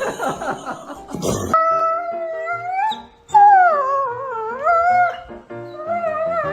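A dog howling: three long drawn-out howls, each sliding up and down in pitch, with short breaks between them, over background music.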